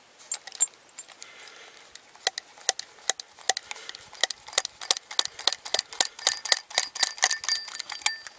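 Metallic clicking and clinking from a hand-operated wedge-bolt removal tool being worked on an old rusty bolt set in rock. A few clicks come at first, then from about two seconds in they run quick and closely spaced, each with a short metallic ring.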